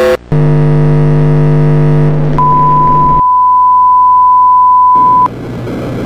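Broadcast cut-off signal sounds. After a brief dropout, a loud, steady electronic buzz with many overtones plays. About two and a half seconds in, a pure, high test tone comes in. The buzz stops a second later, and near the end the tone cuts off, leaving a quieter static hiss.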